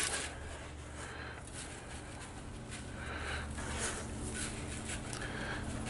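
Granulated white sugar sprinkled by hand onto a salmon fillet on a metal sheet pan: a few faint pattering spells of falling granules over a low steady hum.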